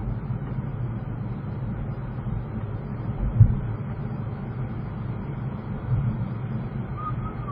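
Steady low rumble of a car's engine and tyres heard from inside the cabin through a dashcam's microphone while driving slowly in traffic, with a single short thump about three and a half seconds in.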